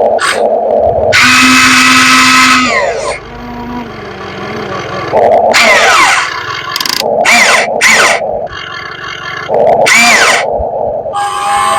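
RC excavator's electric hydraulic pump and motors whining in repeated bursts as the arm and bucket are worked. The pitch falls each time a burst winds down.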